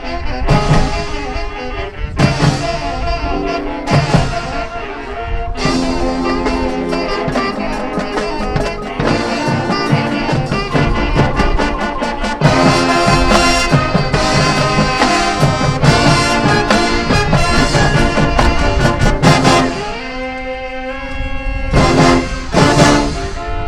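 Marching band playing: brass and woodwinds sustain chords over percussion hits, growing louder about halfway through.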